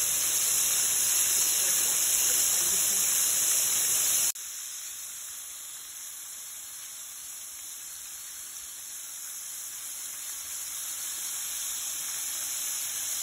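Breaded chicken strips deep-frying in hot oil: a steady, high sizzling hiss. About four seconds in it drops suddenly to a quieter sizzle that slowly grows louder again.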